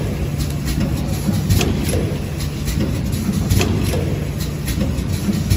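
Wet wipe production machinery running with a steady low hum and scattered sharp clicks.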